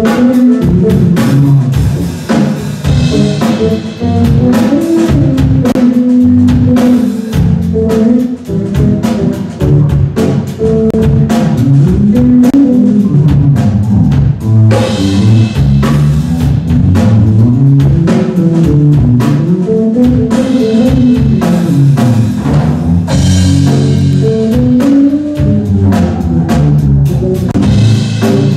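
Electric bass guitar playing live, its line moving up and down in pitch, with a drum kit keeping time behind it.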